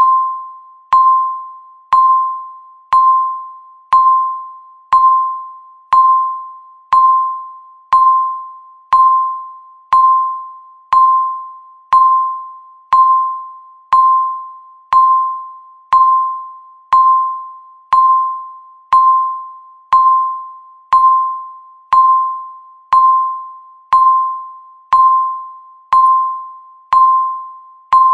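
Countdown timer beeping once a second: a single-pitched electronic chime that starts sharply and fades away before the next, repeating evenly.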